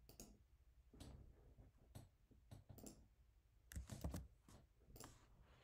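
Faint computer keyboard keystrokes and mouse clicks: single clicks about once a second, with a quick run of several keystrokes about four seconds in.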